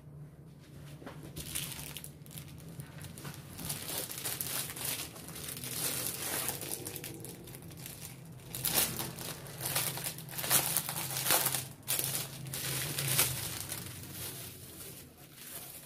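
Clear plastic packaging and protective film crinkling and rustling as it is handled and peeled off, in irregular crackles that grow louder from about halfway through.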